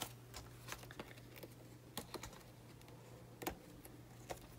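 Paper banknotes being handled and shuffled in and out of clear plastic binder envelopes: faint, scattered light clicks and rustles, with a low steady hum underneath.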